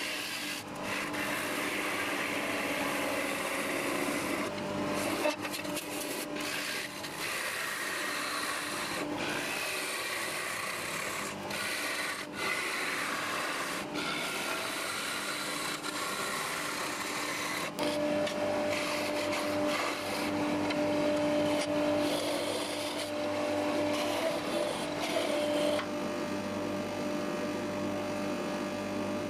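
Wood lathe running with a steady motor hum while a gouge cuts into a spinning Leylandii (conifer) blank: a continuous hissing scrape as shavings peel off. About 26 s in the cutting stops and the hum carries on under a softer rubbing as a hand works the inside of the turning bowl.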